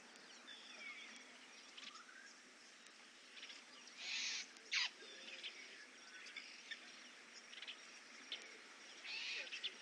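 African wild dogs giving their high, bird-like twittering calls: faint short chirps and glides. The loudest moments are a short hissy burst and a sharp snap about four to five seconds in, and another hissy burst near the end.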